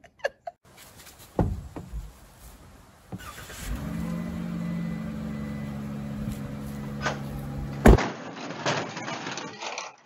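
Ram ProMaster van's engine starting up about three seconds in and then idling steadily. A knock comes about a second and a half in, and a loud thump just before eight seconds.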